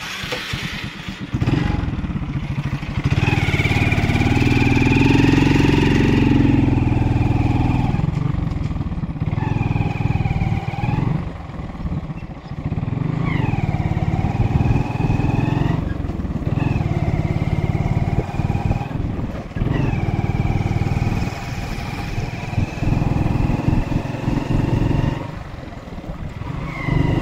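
Motorcycle engine running on the move, a steady rumble with a higher whine whose pitch dips and climbs again several times.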